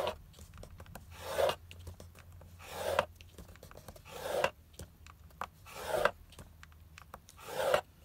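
Scoring stylus dragged down the grooves of a scoreboard through a sheet of cardstock, crimping it row by row. It makes about six rasping scrapes roughly a second and a half apart, each building up and then stopping sharply.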